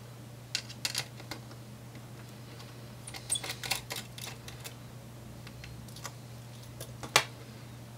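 Scattered light clicks and taps of a small Phillips screwdriver undoing the screws that hold a laptop's CPU heatsink, with the small screws being handled, and a sharper click near the end. A steady low hum runs underneath.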